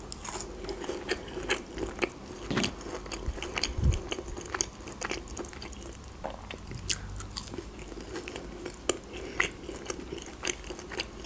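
Biting and chewing crispy fried McDonald's Chicken McNuggets, with many short crunches and crackles of the breaded coating and a few sharper ones spread through.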